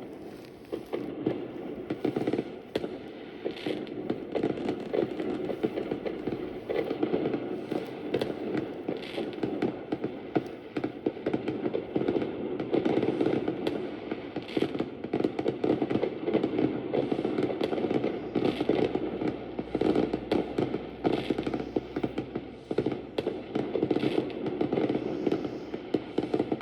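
Fireworks going off in a dense, continuous crackle, with many sharp pops throughout.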